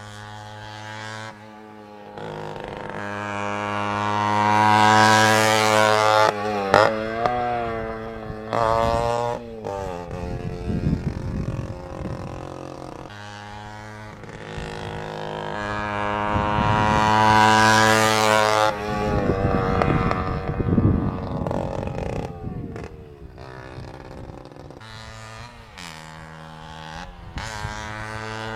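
Flandria Mistral 50cc two-stroke moped engine running, growing loud and fading away twice, with a few quick pitch changes near the first peak.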